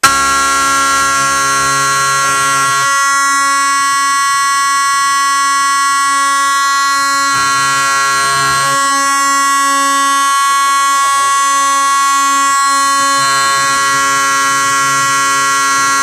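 Simplex 4041 fire alarm horn, a rebranded Federal Signal 450 Vibratone DC horn, sounding continuously: one steady, loud horn tone with many overtones, its timbre shifting a few times.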